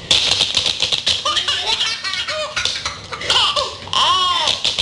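A baby laughing in repeated quick bursts, with a longer high squeal near the end.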